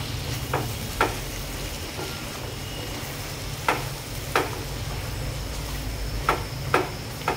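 Cauliflower and potato frying and sizzling in a metal pot while being stirred with a spatula, which knocks and scrapes against the pot about eight times at irregular moments.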